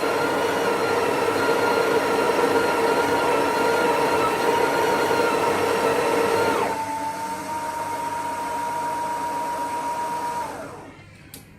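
Breville Oracle espresso machine's built-in coffee grinder running as it doses ground coffee into the locked-in portafilter. About two-thirds of the way through, the sound drops to a quieter, steady whine, which winds down and stops near the end.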